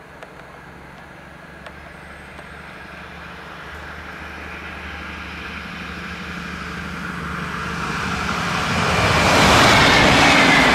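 Diesel train approaching, its engine drone growing steadily louder, with a high whine coming in over the last couple of seconds as it draws close.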